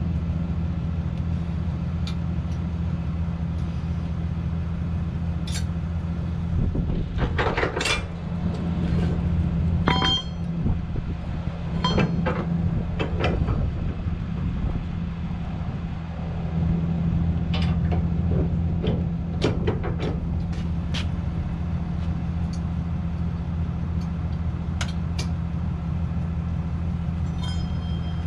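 Metal clanks and rattles of a trailer-hitch ball mount and pin being worked out of and into a pickup's hitch receiver, in scattered clusters. Under them runs the steady hum of an idling engine.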